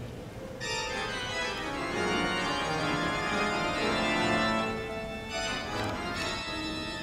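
Organ playing slow, sustained chords that swell to their loudest a little past the middle, then ease back.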